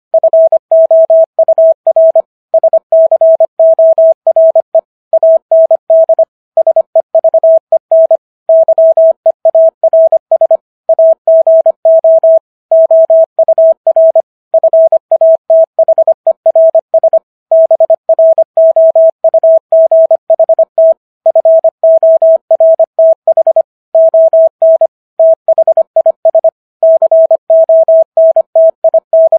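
Morse code sent at 25 words per minute as a single steady mid-pitched tone keyed on and off in quick dots and dashes, with short gaps between letters and words. It spells out the text of the Gettysburg Address.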